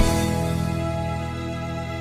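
A band holds a sustained chord after the singing stops, and it slowly fades out.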